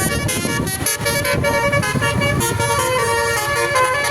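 Basuri musical air horn on a bus playing a tune of held notes that step from pitch to pitch: the Indonesian 'telolet' horn.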